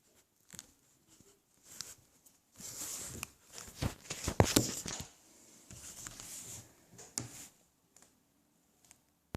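Fishing reel being worked by hand: irregular clicks and knocks with stretches of whirring noise from the turning mechanism, the knocking in the reel that is the fault being shown.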